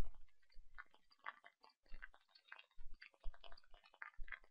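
Irregular, faint computer mouse clicks, several a second, as keys are clicked on a calculator emulator to type in an expression.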